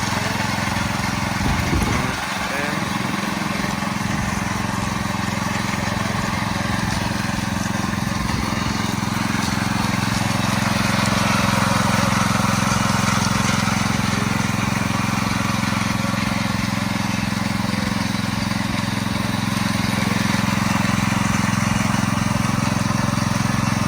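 Small petrol engine of a concrete power trowel running at a steady speed.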